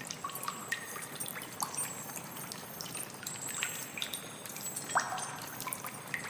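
Water trickling, with many small irregular drips and plinks over a steady splashing hiss.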